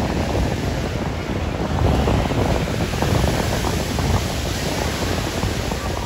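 Surf washing onto the sand, with wind buffeting the microphone in a steady, fluttering rush.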